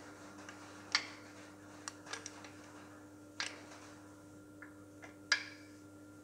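A handful of sharp, light metallic clicks and taps, irregularly spaced, as a long-shanked hand tool knocks against the steel bearing support and parts inside a Massey Ferguson gearbox housing; the loudest come about a second in and near the end, over a faint steady hum.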